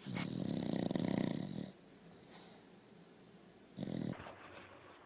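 Small Munsterlander dog snoring in its sleep: one long snore at the start lasting under two seconds, then a shorter one about four seconds in.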